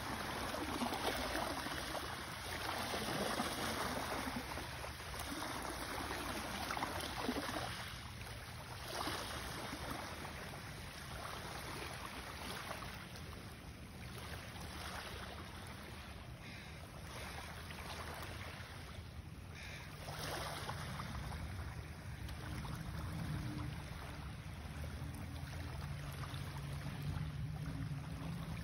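Small waves lapping and washing in over a pebble beach in gentle, uneven surges. A low steady hum joins in over the last third.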